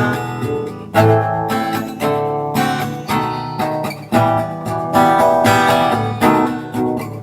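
Acoustic guitar playing an instrumental break with no singing: chords struck about once a second, each ringing on under picked notes.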